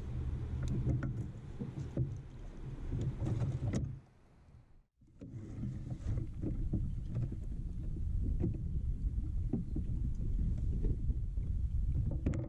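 Low rumble of wind and water around a kayak on a river, with scattered small clicks and knocks of fishing gear being handled. The sound drops out briefly about four seconds in, then the same rumble and clicks resume.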